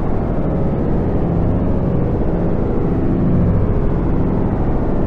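A loud, steady, dense low droning rumble, much like an engine or heavy traffic noise.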